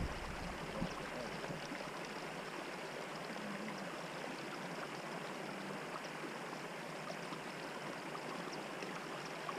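Quiet, steady rush of river water at the bank, even and unbroken, with no other distinct sound.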